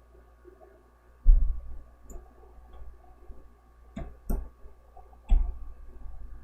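Handling noise from driving small screws into PC parts with a small screwdriver: a few knocks and light clicks, the loudest a low thump about a second in and another about five seconds in.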